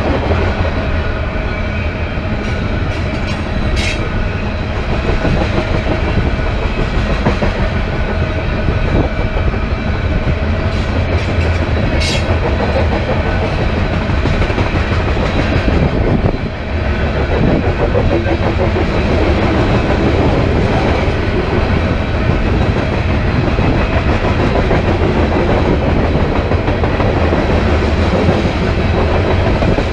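A BNSF train rolling past, with loud, steady noise of wheels on rail. Sharp metallic squeaks come about four seconds in and again about twelve seconds in.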